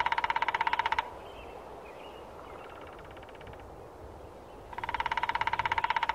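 A mouth-blown call sounding two rapid rattling trills, each about a second and a half long, the first ending about a second in and the second starting near the end, with a fainter trill between them.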